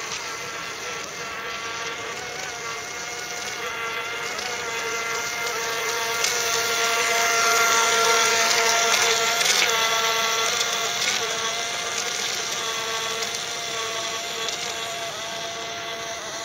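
Homemade paper RC boat's 540-class electric motor and propeller running with a buzz like a bee or fly. It grows louder as the boat passes close about halfway through, then fades as it moves away.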